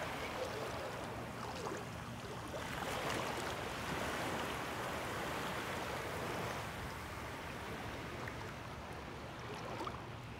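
Gentle waves lapping in shallow sea water, a steady wash that grows a little louder in the middle.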